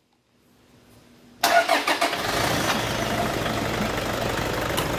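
Toyota D-4D diesel engine starting about a second and a half in, with a brief loud flare as it catches, then settling into a steady idle.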